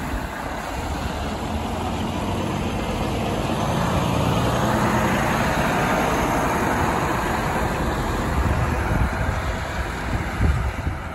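Volvo articulated lorry's diesel engine driving past with a low-loader trailer in tow. It grows louder to a peak about halfway through, then fades as the lorry moves off.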